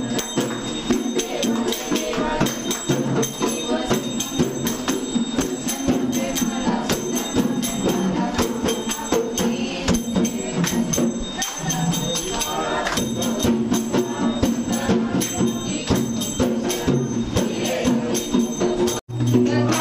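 Group singing a Hindu aarti, clapping along in a steady rhythm, with a continuous metallic jingling ringing over it.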